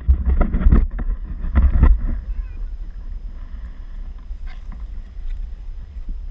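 Wind buffeting the camera microphone. It is a heavy low rumble with two stronger bursts in the first two seconds, then it settles to a lower, steady rumble.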